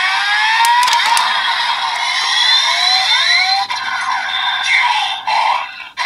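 A DX Desire Driver toy belt plays the electronic form-change sound effects and music for the Zombie and Boost Raise Buckles through its small built-in speaker, with no bass. It is a series of rising synth swoops, with a brief cut near the end. This Zombie–Boost combination triggers its own special transformation sound.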